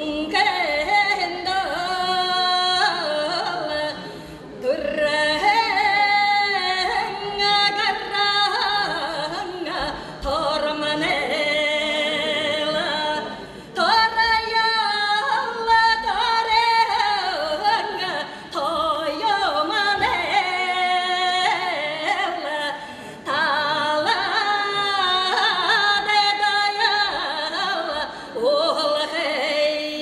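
A woman singing a Buryat folk song solo and unaccompanied into a microphone, in phrases of a few seconds with long held notes that waver in a vibrato and short breaks for breath between them.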